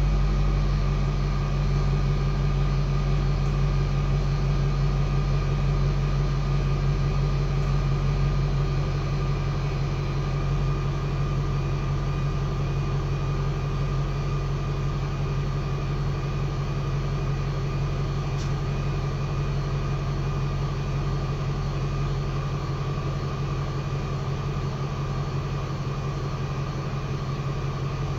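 Audi A8 D3's 4.4-litre V8 petrol engine idling steadily at the stock twin tailpipes on a cold engine, a deep, even exhaust note. It eases slightly quieter over the stretch, with no revving.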